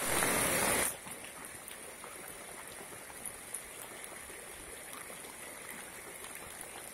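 Heavy rain falling onto a flooded street, a steady hiss of rain on standing water. A much louder rush of noise fills about the first second and cuts off suddenly.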